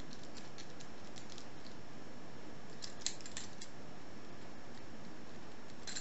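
Commando Peacemaker padlock being locked up: the shackle pressed home and the key worked in the cylinder, giving a series of small metallic clicks, the sharpest cluster about three seconds in and one more near the end, over a steady hiss.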